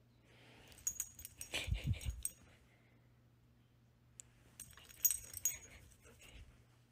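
Metal dog-collar tags jingling in two short spells as the golden retriever moves, with a low thud about two seconds in.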